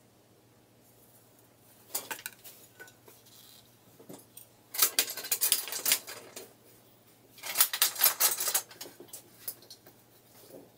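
Metal clattering and rattling from a pressure paint tank's steel lid and swing-bolt clamps as the lid is fitted and clamped down: a short clatter about two seconds in, then two longer rattling bursts about five and eight seconds in.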